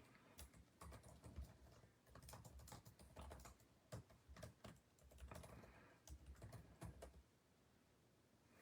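Faint, irregular clicks and taps of someone typing.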